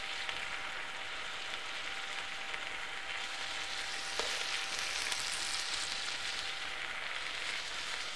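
Turkey pieces and onions frying in the base of a pressure-cooker pot, a steady sizzle that grows briefly louder and brighter about four seconds in.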